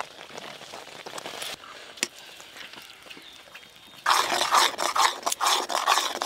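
Metal ladle stirring and scraping round a metal wok of thick, reducing milk with rice paste and date-palm jaggery, a quick run of rasping strokes starting about four seconds in. Before that there is only faint stirring and one light click about two seconds in.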